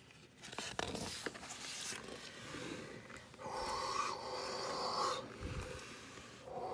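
Pages of a hardcover picture book being turned and handled: paper rustling and sliding, with a few light taps, and a louder, longer rustle about halfway through.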